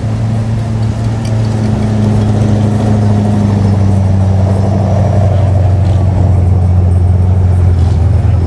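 Car engine idling close by, a loud, steady low drone, with slow-moving show-car traffic around it.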